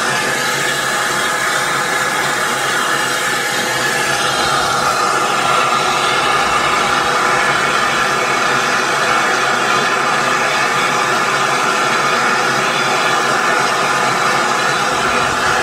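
A standing South Eastern and Chatham Railway steam locomotive, hissing steam steadily.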